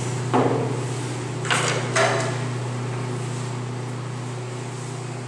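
Three knocks as a metal resin can and tools are set down on a wooden plank workbench, about half a second, a second and a half and two seconds in, over a steady low hum.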